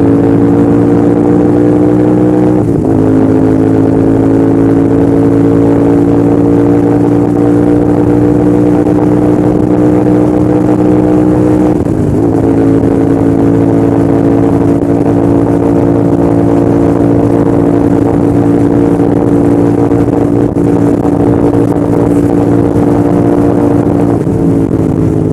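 A Royal Enfield Continental GT650's 648 cc parallel-twin engine runs at steady revs under way, its exhaust note mixed with wind rush. The revs dip briefly twice, about three seconds in and again about twelve seconds in, then fall away near the end as the throttle eases.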